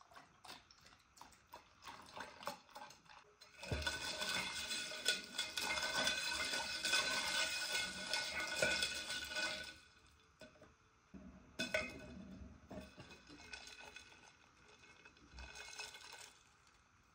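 Long metal spoon stirring a latte in a stainless-steel tumbler, clinking and ringing against the steel walls. A few faint clicks come first, then about six seconds of fast stirring, then two short bursts of stirring.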